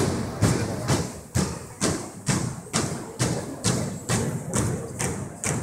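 Drill team marching in unison on a gym's hardwood floor, their footfalls landing together as steady, evenly spaced stomps about two a second, echoing in the large hall.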